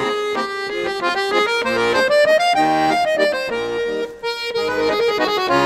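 Instrumental background music: a sustained melody line over repeated chord notes, briefly dipping just after four seconds.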